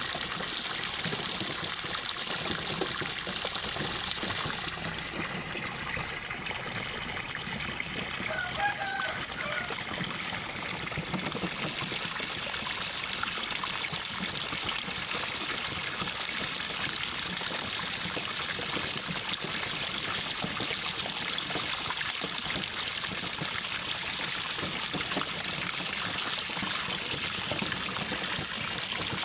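Water pouring steadily from an inflow pipe into a catfish pond, a constant splashing trickle. A chicken calls briefly about nine seconds in.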